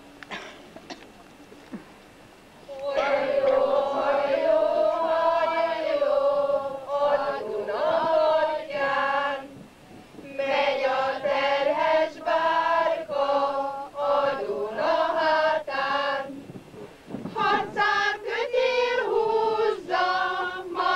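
A choir of high voices singing, starting about three seconds in, in phrases with short breaks between them.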